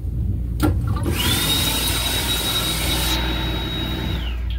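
Automatic sensor-operated wash-basin unit in an M7 railcar lavatory: a click, then a loud rushing hiss with a steady high motor whine that winds down near the end, over the low rumble of the train.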